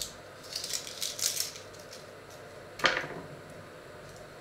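Brittle crackling and rustling of eggshell fragments being handled on a wooden board, then a single hard knock about three seconds in.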